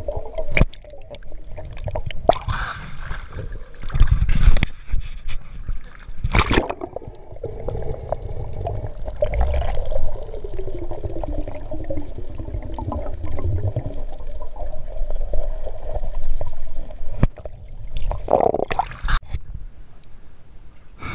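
Underwater gurgling and bubbling over a low rumble and a steady hum, with several loud bursts of bubbles, the biggest about 4 and 6.5 seconds in.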